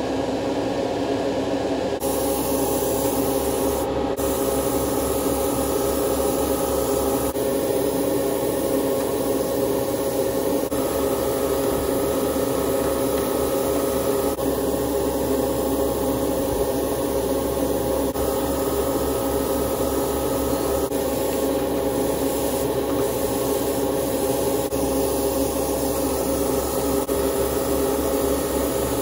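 An airbrush spraying with a steady hiss of air over the constant hum of a running motor.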